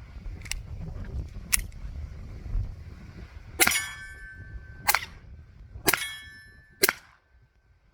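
Taurus TX22 .22 LR pistol firing four sharp shots about a second apart, each followed by a brief metallic ringing, after two fainter cracks earlier on. The pistol cycles every round without a malfunction.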